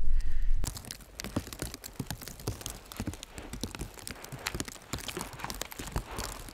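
Footsteps crunching through deep, fresh snow: a run of irregular soft crunches. It opens with a short, louder low rumble on the microphone that stops abruptly less than a second in.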